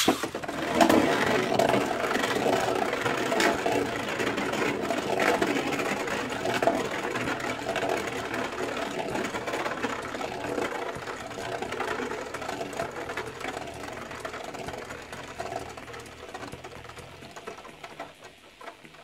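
Beyblade Burst Winning Valkyrie spinning top launched into a plastic stadium with a sharp rip at the start, then whirring and rattling on the stadium floor. The whir slowly fades as the top loses speed.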